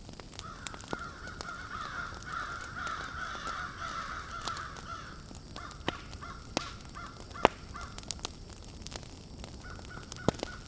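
Crow-like cawing calls, a rough, continuous stretch for the first few seconds and then broken calls, with scattered sharp clicks.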